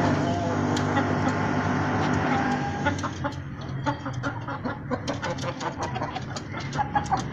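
Aseel hen clucking: a run of short, quick clucks through the second half. A low steady hum fills the first three seconds and fades out.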